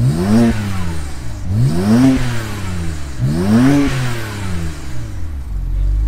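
BMW E92 335i's twin-turbo N54 straight-six, through a Milltek exhaust, blipped three times from idle, each rev rising and falling quickly, then settling back to idle near the end.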